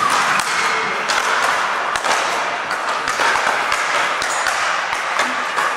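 Speed-ball rackets hitting tethered balls: many sharp, irregular taps from several players rallying at once, echoing in a large hall.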